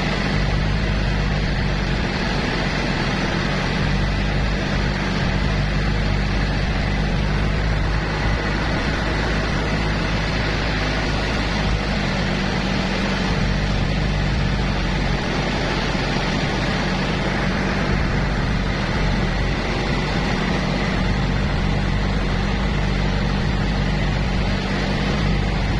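Boat engine running steadily at cruising speed, a low, even drone under a broad rushing noise.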